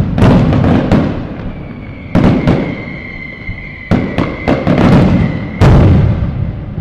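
Fireworks going off in quick succession: about eight sharp booms, each trailing off in crackle. A steady high whistle sounds from about two seconds in and stops near the end.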